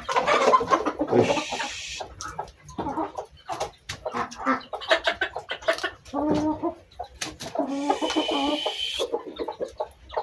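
Bangkok chickens clucking again and again, short calls one after another, with two brief rushing noises, one about a second in and one near the end.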